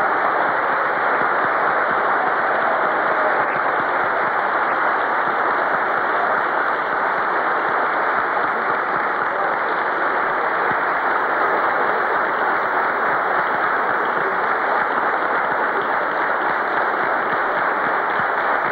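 Audience applause in a concert hall, an even, unbroken clapping that greets a performer called to the stage.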